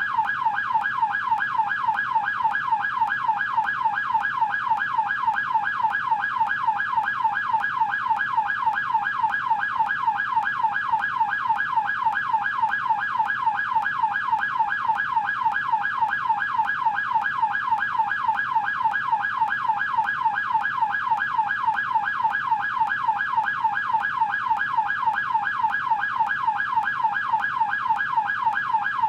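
American police car siren in yelp mode: a rapid, continuous up-and-down wail, its pitch sweeping several times a second in an even, unbroken rhythm.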